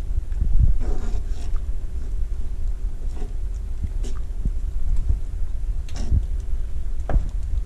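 Wooden spoon stirring a thick cream sauce in a cast-iron skillet, with scattered scrapes and knocks of the spoon against the pan, the sharpest two near the end. Under it runs a steady low rumble with a faint steady hum.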